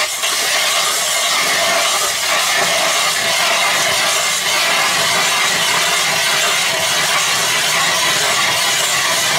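Hand-cranked ice auger drilling into lake ice, its blades scraping and shaving the ice in a steady, continuous grind.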